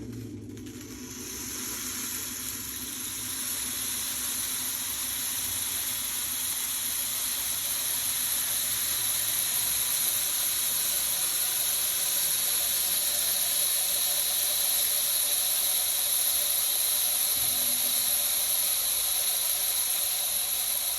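Waterphone sounding a high, sustained squeal of several high tones at once, growing louder over the first several seconds and then held steady.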